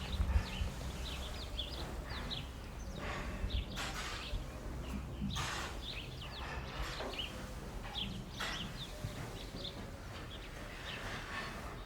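Barn ambience: small birds chirping repeatedly, with a few brief rustling noises and a low steady rumble underneath.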